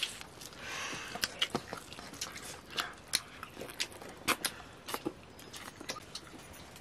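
People eating by hand from steel plates: irregular small clicks and smacks of chewing, with fingers scooping rice against the metal.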